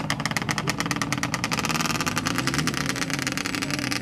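ATV engine running and revving up as the quad pulls away, its pitch rising about halfway through.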